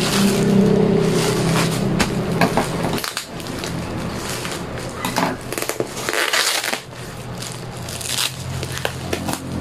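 Plastic packaging crinkling and crackling in bursts as hands handle a courier pouch and peel tape and plastic wrap off a bubble-wrapped parcel. A low hum runs under the first three seconds and returns near the end.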